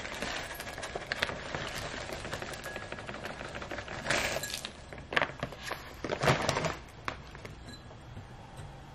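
Potting mix poured from a plastic bag into a ceramic pot: a steady crackling trickle of soil, with a few louder rustles between about four and seven seconds in, quieter near the end.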